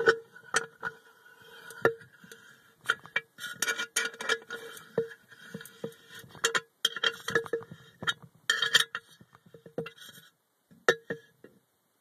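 Water boiling under vacuum in a plastic cup, picked up by a phone sealed inside the chamber: irregular sharp pops and knocks, each with a brief ring, thinning out near the end.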